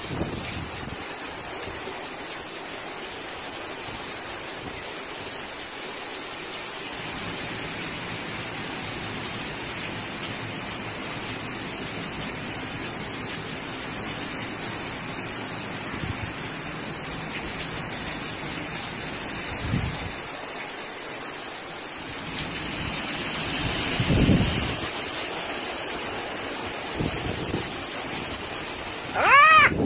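Heavy rain from the remnants of Hurricane Nate pouring steadily, growing louder for a few seconds about three-quarters of the way through. A short pitched tone that rises and falls sounds just before the end.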